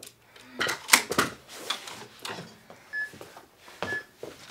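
Metal clicks and clanks from PowerBlock adjustable dumbbells being lifted out of their stands and handled. A cluster of sharp knocks comes about a second in, followed by a few lighter clinks.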